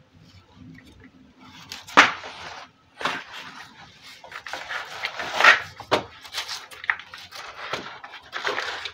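Kitchen knife scraping and cutting dirt and roots off a banana corm, a run of irregular short scrapes with a few sharp clicks of the blade, the loudest about two seconds in.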